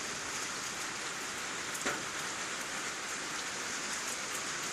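Steady rain-like hiss of outdoor ambience, with one faint click a little under two seconds in.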